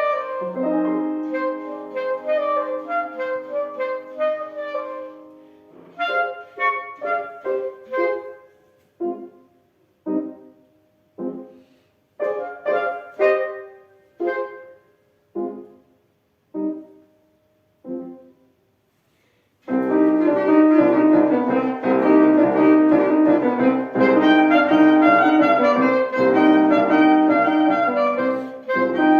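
A wind instrument playing with piano accompaniment. It opens on a held note over the piano, moves into a passage of short, detached notes separated by pauses, falls silent for about two seconds, and then both return loudly in a full, busy passage.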